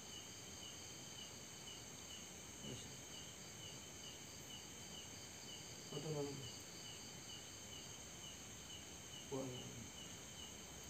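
Night chorus of insects: a cricket chirping steadily about three times a second over a steady high-pitched insect drone. Three brief low murmurs, like a human voice, break in about a third of the way in, halfway and near the end, the middle one the loudest.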